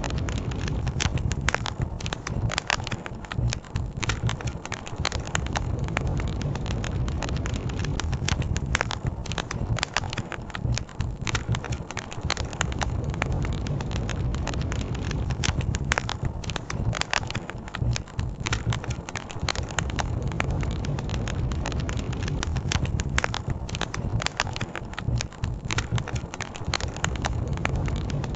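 Wood campfire crackling, with frequent small sharp pops and snaps over a steady low rumble.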